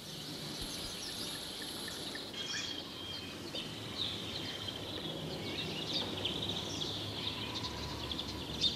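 Forest ambience: many small bird chirps and insect calls over a steady background hiss, with a thin, high, steady insect-like tone during the first two seconds.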